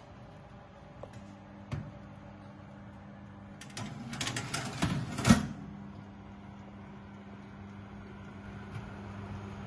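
A convection oven's fan hums steadily while a baking tray is slid in onto the metal oven rack. The tray rattles for a couple of seconds midway and ends in one sharp metallic clack.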